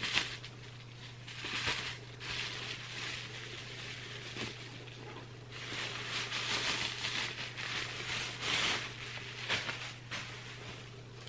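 Plastic bubble wrap rustling and crinkling in uneven surges as it is pulled off a cardboard box by hand, with a few sharp crackles. A steady low hum runs underneath.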